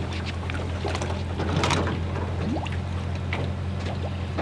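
Pickup truck engine idling with a steady low hum, with scattered light knocks and small water sounds from the boat trailer sitting in the shallows.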